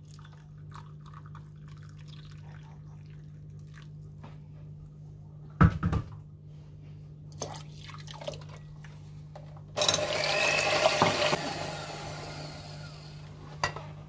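Freshly boiled water poured from an electric kettle into a cup, then a single knock. About ten seconds in, the hot water is poured from the cup into a glass bowl of batter liquid, a splashy pour that starts suddenly and fades out over a few seconds.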